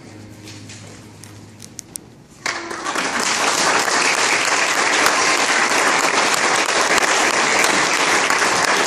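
The last notes of a song fade out, and about two and a half seconds in a congregation breaks into loud, steady applause.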